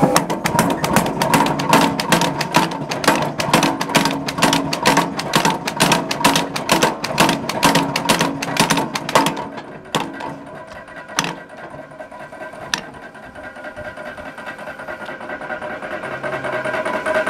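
Power hammer hammering a red-hot steel bar in a fish-tail die, rapid even blows about five a second, drawing out the flared fish-tail end of a scroll. The blows stop about nine seconds in, followed by a few single blows and then the steady hum of the running machinery.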